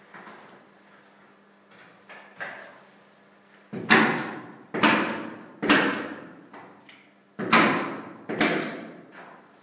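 Paint brush striking and sweeping across a large sheet pinned to a wall: five loud strokes in the second half, each sharp at the start and trailing off, after a few fainter ones.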